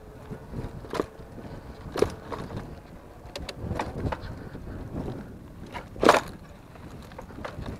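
Fat-tire e-bike ridden over a rough, sandy trail, knocking and rattling irregularly as it jolts over bumps, over a steady low rumble. The loudest knock comes about six seconds in.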